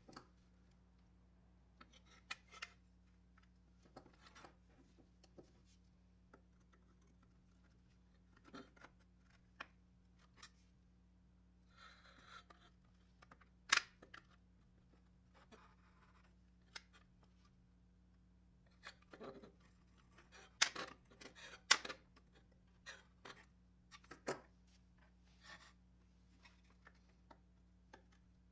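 Screwdriver prying and scraping at the bent-over tabs of a rusted sheet-metal 1940s Marx toy airplane body: scattered small metal scrapes and clicks, with a few sharp snaps of the tool slipping or a tab giving, the loudest around the middle and a little later.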